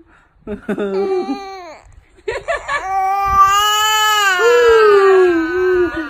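Young infant crying: a few short cries, then one long wailing cry that jumps up in pitch partway through and slowly falls back.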